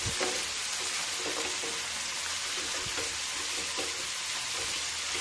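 Chopped onion and tomato sizzling steadily in hot oil in a pan while being stirred with a wooden spatula. There are a few light knocks of the spatula against the pan.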